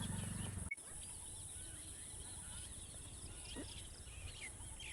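Many small birds chirping with short, scattered calls, faint. A low rumble cuts off abruptly less than a second in.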